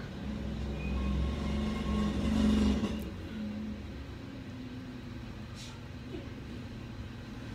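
A motor vehicle's engine running, growing louder to a peak about two and a half seconds in, then lower and steady.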